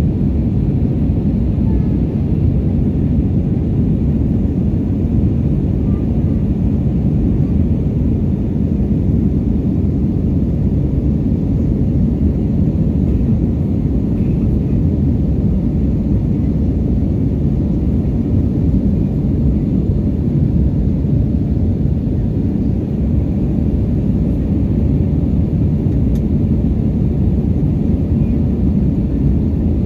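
Steady low rumble of engine and airflow noise inside the cabin of an Airbus A321 in flight, even and unbroken.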